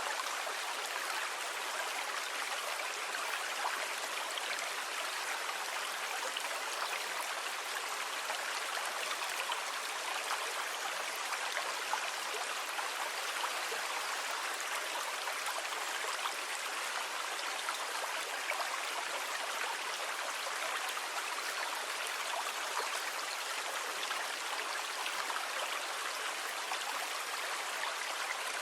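Steady rushing water with a fine crackle throughout, sea water by the title, holding an even level with no swell of breaking waves.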